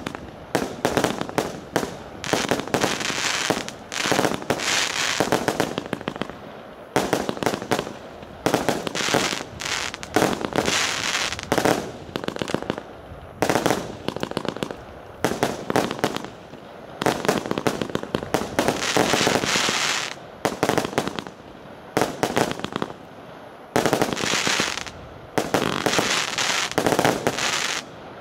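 A 100-shot, 0.8-inch consumer firework cake firing its shots in quick succession: sharp launch pops and bursts run together with the crackle of glittering stars, in bunches with short gaps between them. The firing stops near the end.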